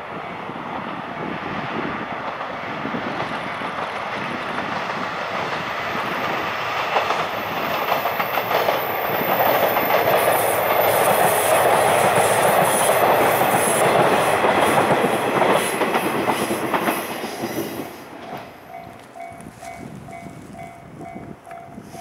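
Diesel railcar train passing. Its running noise and wheel clatter grow to a loud peak in the middle, then fall away sharply a few seconds before the end. A level-crossing bell is then left ringing in steady pulses, about two a second.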